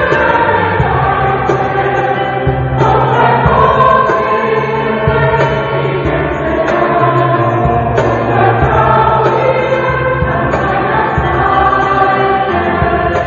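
Mixed choir singing a sacred song.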